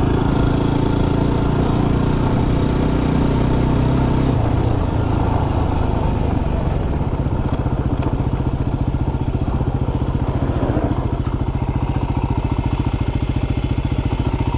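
Yamaha WR250R's single-cylinder four-stroke engine slowing as the bike rolls to a stop, then idling with an even rapid putter, and cutting off at the very end.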